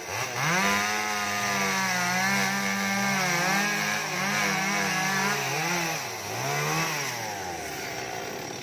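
Two-stroke chainsaw cutting through a felled coconut palm trunk, its engine pitch dipping and rising several times as the chain bites into the wood; it stops right at the end.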